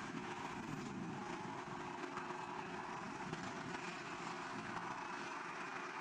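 Steady, even roar of a Boeing 767 airliner's jet engines heard from afar as the plane slides along the runway on its belly after a wheels-up landing.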